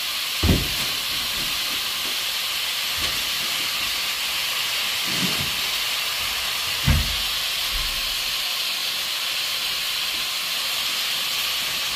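Chopped vegetables sizzling steadily as they sauté in a little oil in a pot. A dull thump comes about half a second in and another about seven seconds in.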